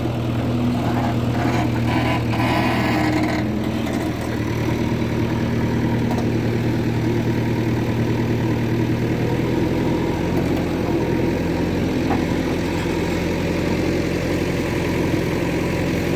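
Diesel engine of heavy farm and earthmoving machinery running steadily at a low, even speed. A brief rushing noise sounds a couple of seconds in.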